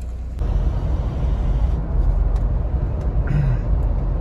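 Steady road and engine noise inside the cabin of a Mahindra Thar diesel automatic cruising on a highway. It turns louder about half a second in.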